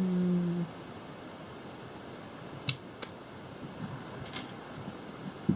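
Plastic Lego Technic pieces clicking as they are picked out and handled: three short sharp clicks in the middle of a quiet stretch, after a drawn-out spoken word at the start.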